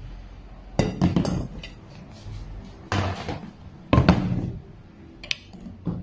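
Kitchenware being handled on a table: a stainless steel bowl pushed aside, then a wooden cutting board and a knife set down, giving a series of knocks and clatters. The knocks come in clusters about a second in, at three seconds and at four seconds, with two lighter clicks near the end.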